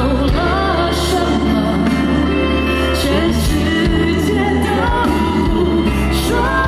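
Live pop song: a female vocalist singing a slow melody into a microphone over a band, with sustained bass and held chords underneath.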